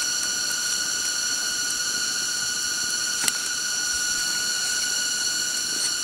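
A steady, high-pitched drone made of several even tones, with one sharp click about three seconds in.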